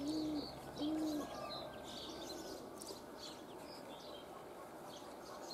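Domestic pigeons cooing: two short coos, each rising and falling, in the first second or so. Faint high chirps of small birds follow.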